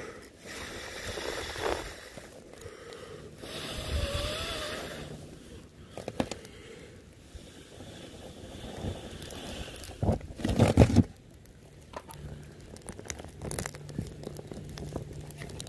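Scraping and rustling as a piece of char fungus is pushed against burning birch bark in a fire pit. A loud burst of handling noise comes about ten seconds in.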